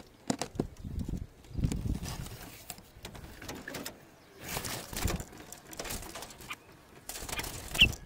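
Doves cooing in low, separate bursts, mixed with rustling and scraping as fruit is handled inside a wire-mesh cage, and a short, high bird chirp near the end.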